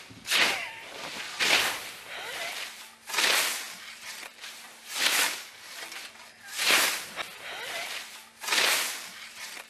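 A scythe swishing through tall grass in repeated mowing strokes, six of them, one roughly every one and a half to two seconds.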